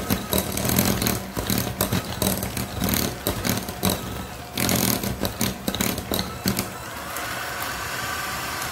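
Electric hand mixer running with its beaters clattering against the sides of a glass bowl as they beat thick cream cheese with sugar and orange zest. Near the end the clattering stops and the motor runs on smoothly.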